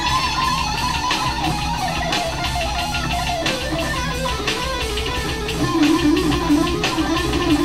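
Electric guitar played with a pick: a continuous melodic lead line of quick picked notes that works its way down in pitch.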